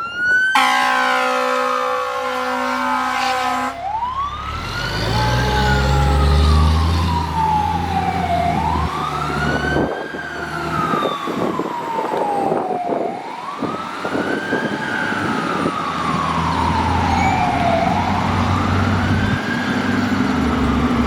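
A 2000 Pierce Lance fire rescue truck sounds its air horn in a long blast that breaks off briefly just after the start and stops about four seconds in. Its siren then wails in slow rises and falls, about four sweeps, with the truck's heavy engine low underneath as it goes by.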